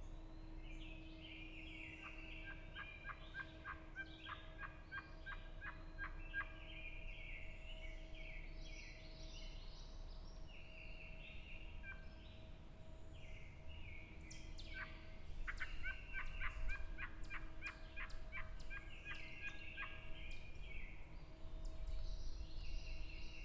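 Hand-held turkey call worked in two fast runs of sharp, raspy yelps and cutts, about four strokes a second, the first near two seconds in and the second near fifteen seconds in. Songbirds sing throughout.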